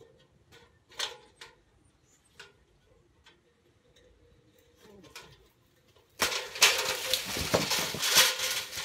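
Faint taps and clicks of an aluminium extension ladder against a papaya tree, then about six seconds in a sudden loud crashing rustle of leaves and branches lasting a couple of seconds as the ladder and climber come down into the foliage.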